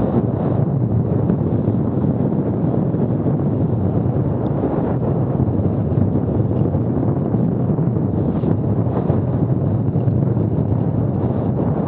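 Steady wind noise buffeting an action camera's microphone as a mountain bike goes down a dirt trail at about 32 km/h, with faint knocks from the bike over rough ground now and then.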